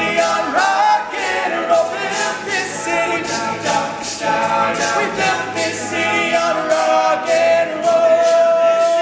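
All-male a cappella group singing a pop song in close harmony over a steady beat of about two strokes a second, with a lead voice on top. Near the end the voices settle on a long held chord.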